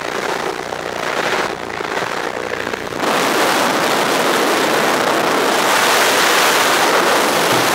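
Wind rushing past the open jump door of a skydiving plane in flight, mixed with the plane's engine noise. The rush gets louder and brighter about three seconds in.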